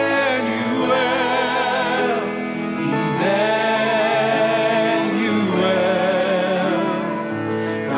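Worship band and choir singing a slow song, voices holding long notes with vibrato over acoustic guitar and cello.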